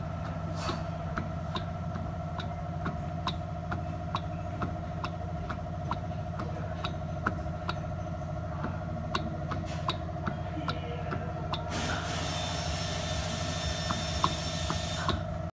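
A Lexus in motion, with a steady running hum and a regular ticking rattle. The ticks come about once every three-quarters of a second at first and gradually quicken. A hiss rises near the end. The rattle appeared after the owner refitted the wheels himself.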